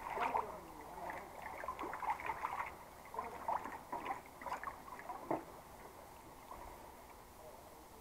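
A hooked fish splashing at the surface as it is drawn into a landing net: a run of small, irregular splashes that dies down after about five and a half seconds.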